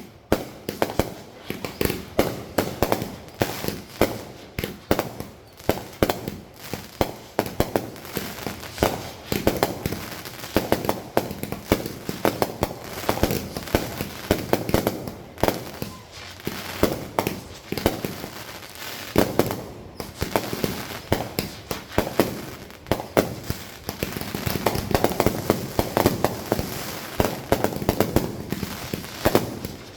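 Fireworks going off in quick succession: a continuous stream of bangs and crackling, several reports a second, with a denser run of bangs in the last few seconds.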